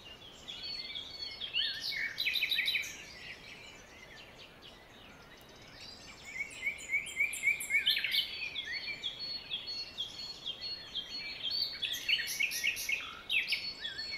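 Small birds chirping and twittering, many quick calls overlapping. The chorus thins out for a few seconds in the middle, then fills in again.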